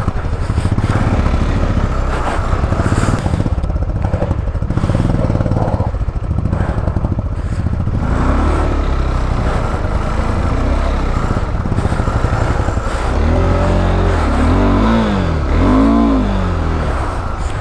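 Motorcycle engine running at low speed over a slick, muddy track, with a steady pulsing drone. Near the end it is revved up and down three times as the rear tyre fights for grip in the slippery mud.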